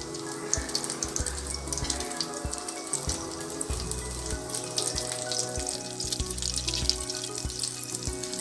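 Breadcrumb-coated potato patties shallow-frying in hot oil in a pan, sizzling and crackling steadily.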